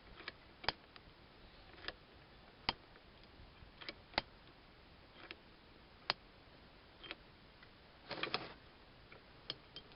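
Irregular sharp metallic clicks and taps, roughly one a second with a short rattling cluster near the end, as the swivel-base lock lever of a Wilton bench vise is unscrewed by hand.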